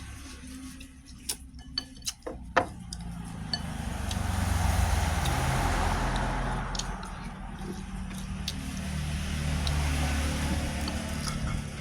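A few sharp clinks and knocks, then road traffic passing, a broad rushing noise that swells and fades twice over a low steady hum.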